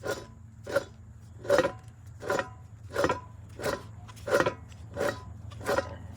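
Worn rear wheel hub bearing from a 2006 Subaru Forester turned by hand, grating in short strokes about every three-quarters of a second. The bearing is tight and rusted inside, the cause of the car's rear hub noise.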